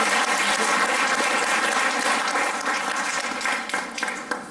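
Audience applauding, fading near the end into a few scattered claps.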